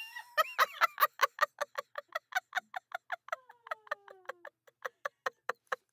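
A woman in a fit of the giggles: a long run of quick, breathy laugh pulses, about five a second.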